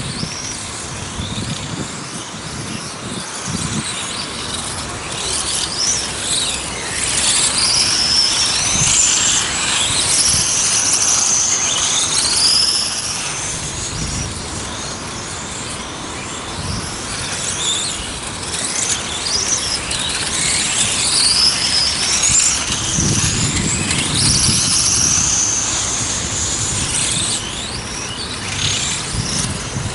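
Electric 1:8-scale RC race cars lapping an asphalt track, their motors and drivetrains giving a high whine that rises as they accelerate and falls as they brake into corners, over and over.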